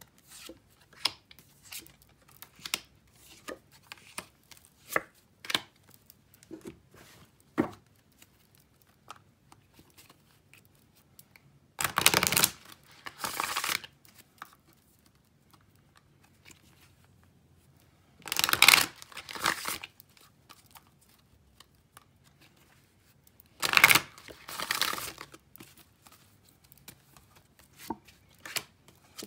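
A deck of cards being shuffled by hand in three loud rustling bursts of about two seconds each, some six seconds apart. Before them come light clicks and taps of cards being handled and laid down.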